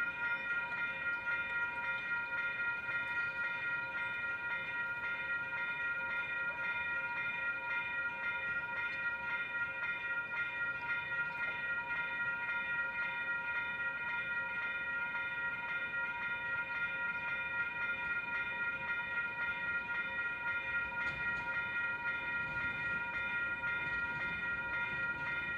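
Railroad grade-crossing warning bell ringing continuously, its rapid, evenly repeated strikes blending into a steady ring.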